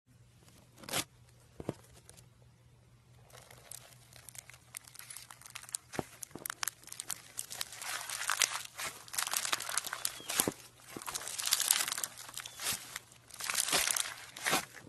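Red foam-bead slime (floam) squeezed and kneaded by hand, its beads crackling and crunching. Two soft pops in the first two seconds, then the crackling sets in about three seconds in and grows denser and louder.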